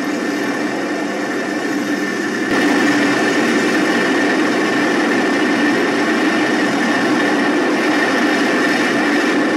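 Little Bird helicopter's engine and rotors running steadily, heard from on board, with a steady low hum and a high whine. The noise steps up in loudness about two and a half seconds in.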